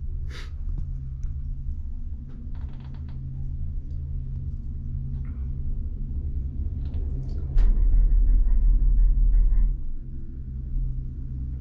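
Steady low rumble of a cable car running on its cable, heard from aboard, with a few light clicks. About two thirds of the way in a much louder low rumble with a faint whine rises for about two seconds, then drops back.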